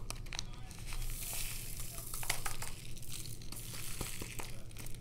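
Square 2.5 mm crystal diamond-painting drills poured off a plastic drill tray through its spout into a small zip-top bag: a light pattering rattle of many tiny beads, densest about a second in, with crinkling of the bag.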